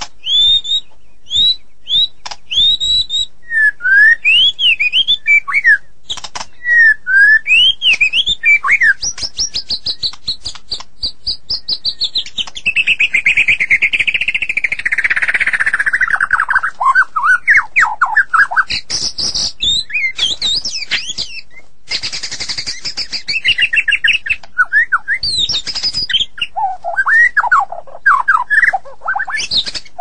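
White-rumped shama (murai batu) singing a continuous, varied song of quick rising and falling whistled notes and fast rattling trills, with a long phrase sliding down in pitch midway.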